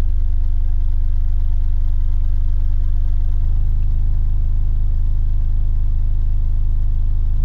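MACH Audio Ford Mustang subwoofers playing a loud, steady bass test tone of about 25 hertz, stepping up a little in pitch about three and a half seconds in as the test frequency is raised.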